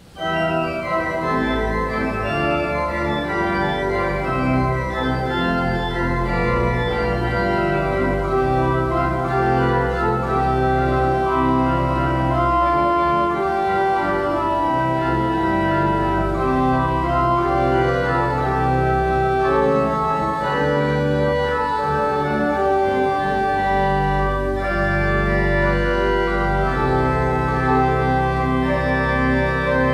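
Organ music played in slow, sustained chords that hold and shift steadily.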